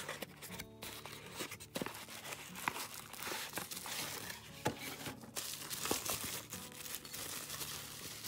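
Plastic bubble wrap crinkling and a cardboard sleeve rustling and scraping as a small saucer is unwrapped by hand, a continuous crackle with many small sharp clicks.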